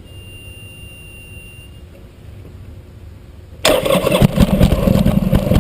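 Buell motorcycle's electric starter cranking the engine in a loud burst of about two seconds, beginning some three and a half seconds in, without the engine firing: a no-start on a battery that is running down. Before it there is only a faint steady hum.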